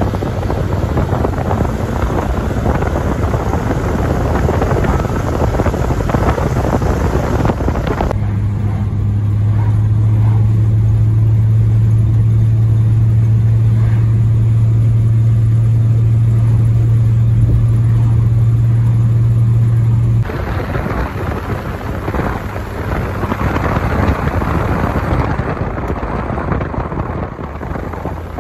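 Cars on the move: wind and road noise rushing over a microphone mounted outside, then, about eight seconds in, a steady low engine drone inside the cabin of a 1962 Mercury Comet Custom with its straight-six at a constant cruise, lasting about twelve seconds before the rushing wind and road noise return.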